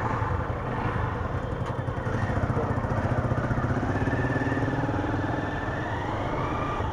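KPR 150 motorcycle riding under way, its engine note climbing gradually through the second half as it accelerates.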